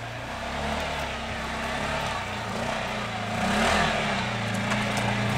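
Arctic Cat Prowler 700 XTX side-by-side's single-cylinder engine working under load as the machine crawls over rocks, its revs wavering up and down, with a louder surge a little past halfway.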